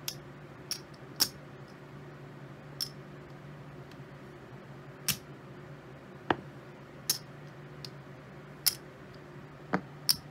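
Poker chips clicking against one another as a bet is counted off a stack and set down on a craps layout: a dozen or so sharp clicks at uneven intervals, over a steady low hum.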